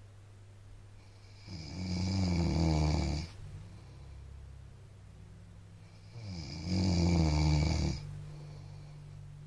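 A man snoring in his sleep: two loud, rough snores, each about two seconds long, one about one and a half seconds in and the next about five seconds later.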